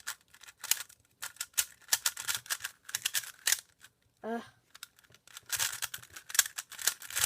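GAN 356 Advanced speed cube being turned quickly by hand: rapid clicking and clacking of its plastic layers in quick flurries, with a short pause a little before halfway.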